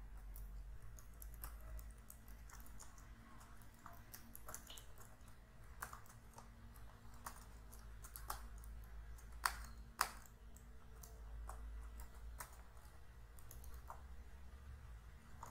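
Faint, irregular keystrokes typed on a computer keyboard, with two louder clicks a little past the middle, over a low steady hum.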